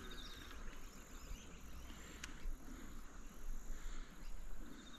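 Faint insect chirping over quiet riverside ambience, with a single light click a little over two seconds in.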